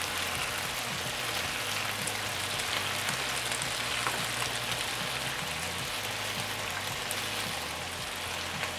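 Chicken wings sizzling steadily in a frying pan while honey glaze is brushed over them.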